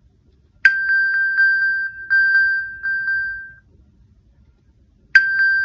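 iPhone's Find My ping alert, set off from the paired Apple Watch: a high chime that pulses quickly, about five times a second. It sounds for about three seconds from just under a second in, then starts again near the end.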